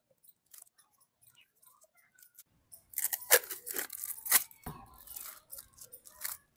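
Yellow protective tape being peeled off the wooden handle of a meat grinder's crank, heard as a run of crackling rips that starts a few seconds in and lasts about two to three seconds, with one sharper snap among them.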